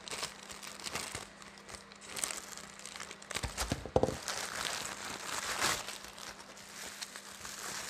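White plastic courier mailer bag crinkling and rustling as it is cut open with scissors and handled, with a louder thump about four seconds in.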